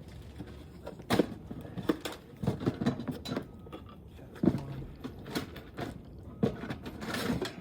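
Irregular sharp clicks and knocks, about eight of them spread unevenly over several seconds, from hand work on an asphalt shingle roof.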